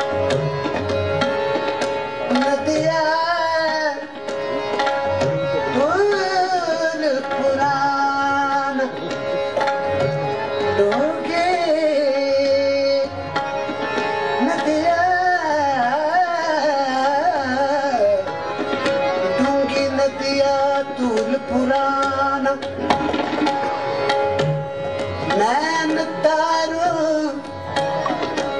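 Live kaafi performance: a male voice sings ornamented, gliding phrases over a steady harmonium drone, with tabla playing a continuous rhythm.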